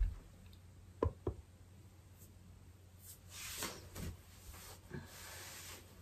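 A few soft knocks about a second in, then rustling of hair and clothing as hands run through long hair and pull out a hair tie.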